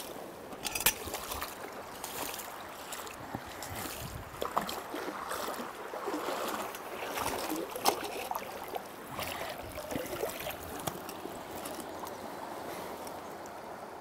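Shallow river water splashing and sloshing around a man's legs as he wades and handles rocks, with scattered sharp clicks of stones knocking together, the sharpest about a second in and about eight seconds in.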